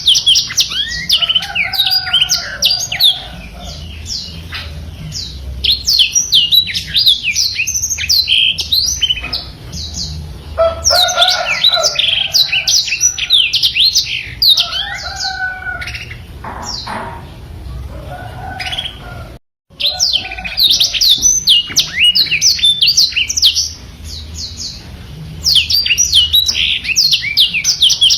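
Blackthroat (black-throated canary) singing a long, energetic run of rapid high chirps and twittering trills in dense bursts, with softer lower phrases between them. The song cuts out for a moment about 19 seconds in.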